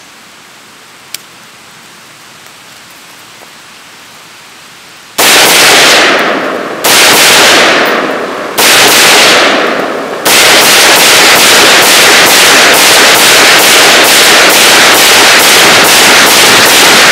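Doublestar AR-15 rifle firing after a few seconds of quiet: four single shots about a second and a half apart, each with a long fading echo, then a fast string of shots at about three a second. The shots are very loud.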